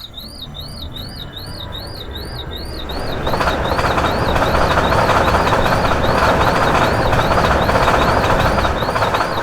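A level-crossing electronic warning signal warbles steadily, about two and a half chirps a second, as a train passes. The train's rumble and rush build over the first three seconds and stay loud until near the end.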